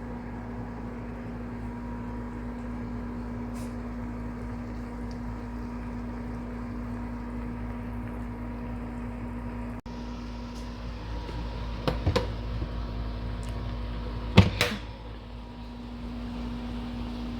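Steady electrical hum of a kitchen appliance. About twelve and again about fourteen and a half seconds in there are brief clanks, like a pot or utensil being knocked.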